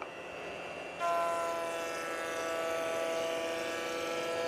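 Router spinning a 3/8-inch roundover bit, rounding over the edge of an MDF drawer front: a steady whine that gets louder about a second in.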